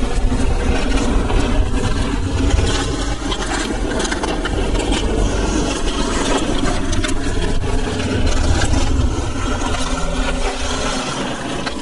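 Wind rumbling on a chest-mounted action camera's microphone as a Yeti SB75 mountain bike rolls along a dirt trail, with the tyres scraping on dirt and the bike rattling over the bumps.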